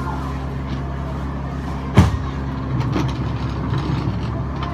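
A steady low mechanical hum, like a running engine or machinery, with one heavy thump about two seconds in and a few lighter knocks after it.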